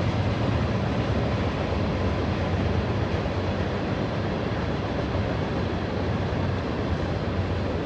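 Norfolk Southern freight train's cars rolling past, a steady rumble of wheels on rail.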